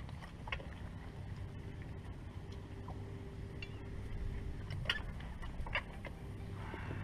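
Motorguide electric trolling motor running, a steady low hum, with a few sharp clicks around the boat, the loudest about five and six seconds in.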